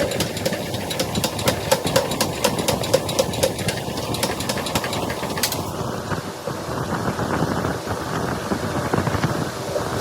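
Rapid, evenly spaced hammer blows on hot steel bar being forged, about five a second, stopping about five and a half seconds in. A steady rushing noise runs underneath throughout.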